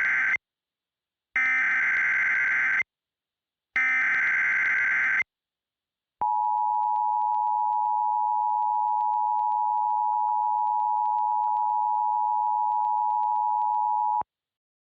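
Emergency Alert System activation tones: the end of one SAME header data burst and then two more, each about a second and a half long with short gaps between them. After a pause comes the two-tone EAS attention signal, held steady for about eight seconds before cutting off sharply.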